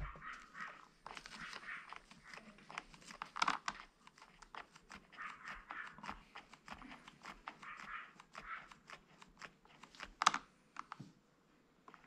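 KTM 690 SM's hydraulic clutch lever being pumped by hand, giving many quick clicks and taps, the sharpest about ten seconds in, with bursts of rustling between them. The clutch is being bled with fresh mineral oil.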